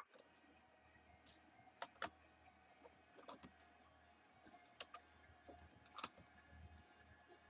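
Faint, irregular small clicks and short scrapes of a screwdriver backing the screws out of a laptop's plastic back cover.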